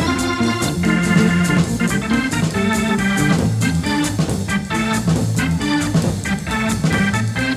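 Jazz Hammond organ playing short, punchy chords, with drums keeping time on cymbals underneath.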